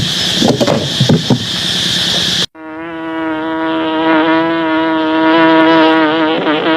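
A steady high insect drone with some rustling, then after a sudden cut a loud, close, steady buzz of a flying insect, likely a giant honeybee, that wavers slightly in pitch.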